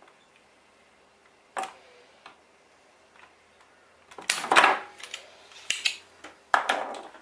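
Bench work on a TV power supply board: a single sharp click about one and a half seconds in, then a run of louder clatters and rustles from about four seconds in as tools and the board are handled.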